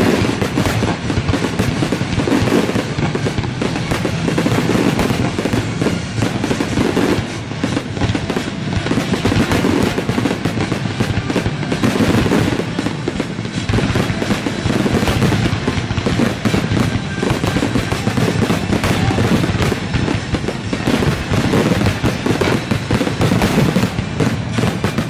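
Fireworks display with many aerial shells bursting in rapid, unbroken succession, a dense run of bangs and crackling.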